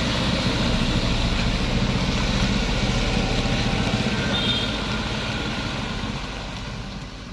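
Heavy truck's diesel engine running with a steady low rumble, fading away over the last couple of seconds.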